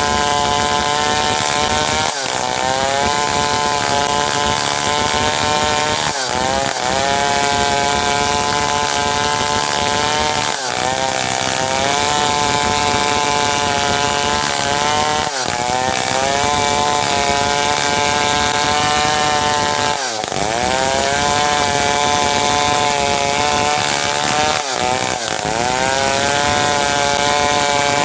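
Stihl 070 two-stroke chainsaw cutting into merbau hardwood, running loud under load. Its engine pitch drops sharply and climbs back about every four to five seconds as the chain bites and the saw recovers.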